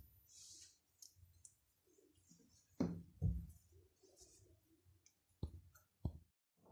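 Faint handling sounds of hands working dough on a stone countertop: a few light clicks and taps, with two soft thumps about three seconds in.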